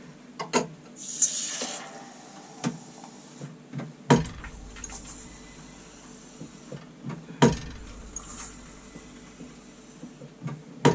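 A pint of pale ale pulled through a bar handpump into a pint glass. The pump handle knocks with each stroke, loudest about four and seven and a half seconds in, and beer pours into the glass after each pull, with small clinks of the glass.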